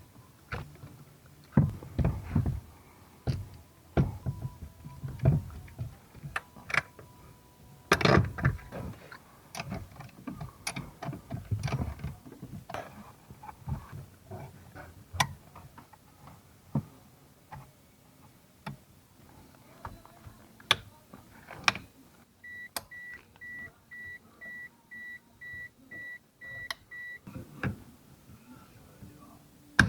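Clicks, knocks and clunks of tools and metal parts being handled while a car's steering column is reassembled. About two-thirds of the way in, a run of about ten short, evenly spaced high beeps.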